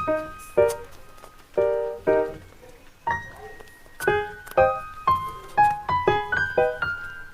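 Background music: a light piano-like keyboard melody of separate struck notes, each fading quickly.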